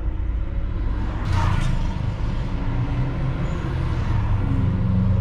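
Road traffic idling in a jam: a steady low engine rumble, with a short hiss about a second in.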